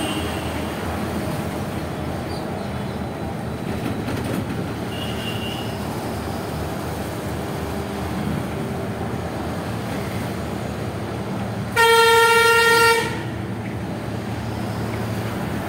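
Steady road and engine noise of a vehicle moving through city traffic. About twelve seconds in, one loud vehicle horn sounds for just over a second.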